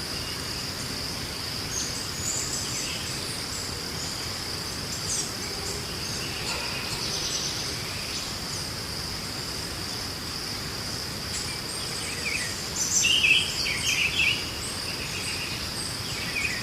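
A steady high-pitched insect drone, with scattered short bird chirps over it and a louder run of bird calls about thirteen seconds in.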